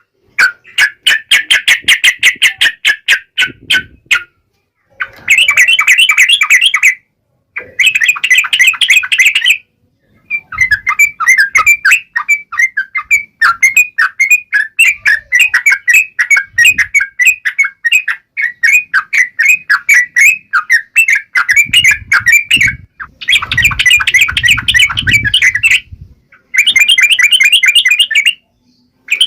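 Yellow-vented bulbul (trucukan) singing a loud, rapid, bubbly chattering song, in phrases of a few seconds separated by brief pauses.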